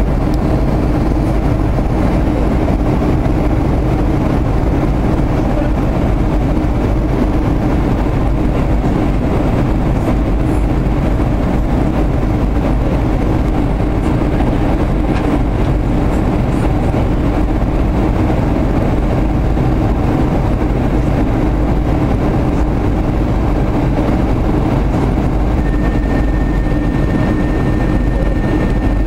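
Boeing 737-400 cabin noise in flight: the steady rush of airflow and the hum of its CFM56 engines, heard from a window seat. A thin, steady high whine joins near the end.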